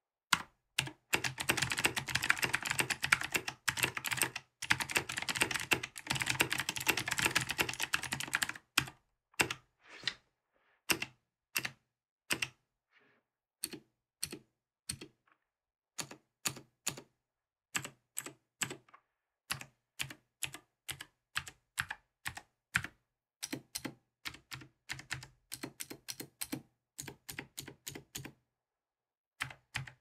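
Royal Kludge RK84 hot-swappable mechanical keyboard with PBT dye-sublimated MT3 keycaps being typed on. Fast, continuous typing runs for about the first nine seconds, then gives way to slower, scattered single keystrokes and short runs of presses.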